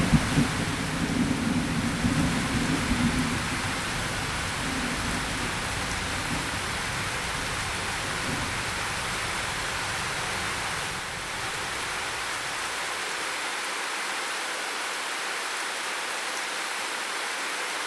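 Steady rain falling, with a low rumble of thunder dying away in the first few seconds.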